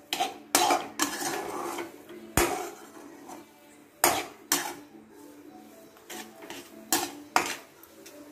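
Metal slotted spatula scraping and clanking against a metal kadhai while stirring and pressing thick wheat-flour halwa, which is cooked down into a single lump. The knocks are irregular: several close together at first, then a short lull, then single strikes every second or so.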